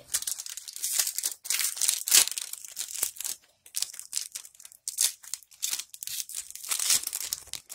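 Foil Pokémon booster pack wrapper crinkling and tearing as it is opened by hand, in quick irregular bursts of crackling, with the cards sliding out of it.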